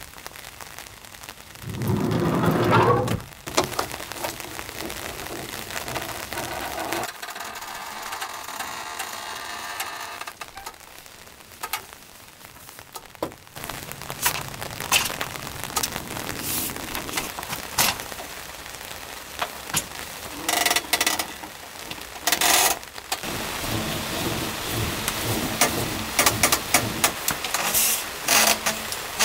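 Steady rain falling, with knocks and rattles as a camper van's roll-out awning is pulled out and its support leg set up. A louder rumble comes about two seconds in.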